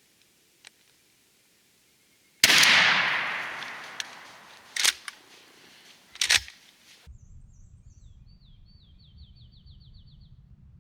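A single 20-gauge shotgun shot about two seconds in, echoing and fading away over a few seconds, followed by two shorter sharp knocks. Then, after an abrupt change, a low rumble and a small bird singing a rapid trill.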